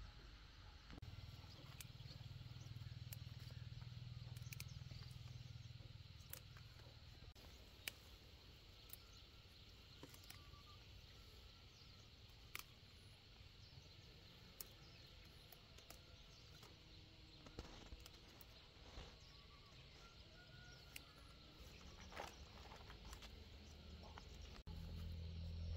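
Quiet field ambience with faint insects and birds, broken by small irregular snaps and leaf rustles as ripe chili peppers are picked off the plants by hand.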